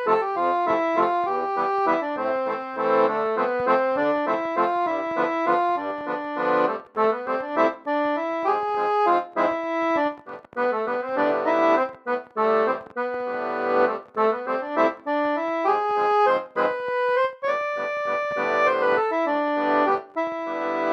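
Instrumental music: a melody of quick, changing notes over sustained chords, with brief breaks between phrases.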